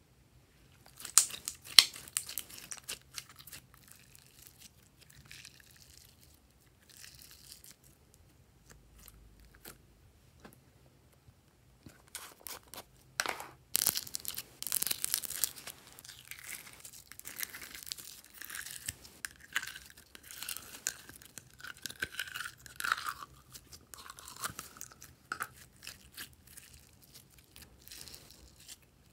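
Hands stretching, squeezing and poking glossy slime, giving sticky crackles and clicks. The sounds come thicker and louder about halfway through, as a finger presses into a tub of glitter slime.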